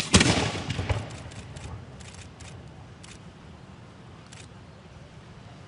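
Aerial firework going off: a sharp bang at the start, then a rapid crackle of many small reports that fades over about two seconds, with a few scattered pops up to about four seconds in.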